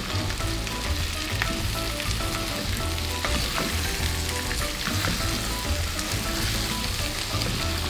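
Chicken and vegetables sizzling as they are stir-fried in a pan, with a spatula scraping and tapping against the pan now and then.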